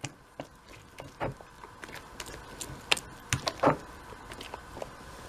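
Scattered soft clicks and knocks of kitchen utensils and containers being handled while more milk is added to pancake batter, over a faint steady hum.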